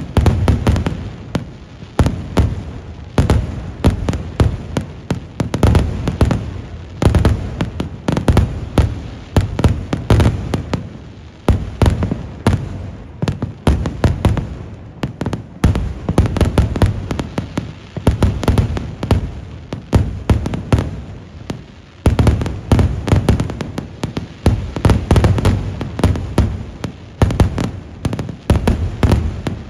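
Aerial firework shells bursting in a dense, continuous barrage of loud sharp bangs, several a second, overlapping into a rolling crackle. The barrage eases briefly about halfway through.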